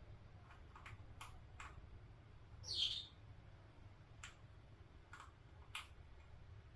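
A Senegal parrot gives one short call that falls in pitch about three seconds in, among several light clicks.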